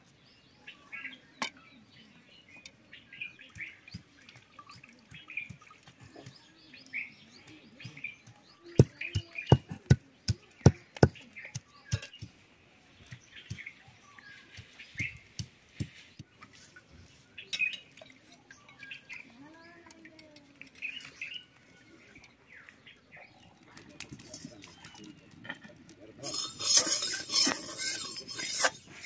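Stone pestle knocking and crushing garlic cloves on a flat stone grinding slab (sil-nora), sharp knocks, with a quick run of loud blows about a third of the way in, while birds chirp. Near the end a metal spatula scrapes inside a steel kadai.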